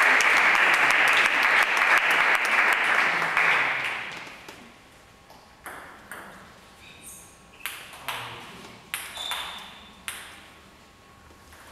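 Spectators clapping in a large hall after a table tennis point, fading out about four seconds in. Then come scattered single sharp clicks of a table tennis ball bouncing, with a few brief high squeaks.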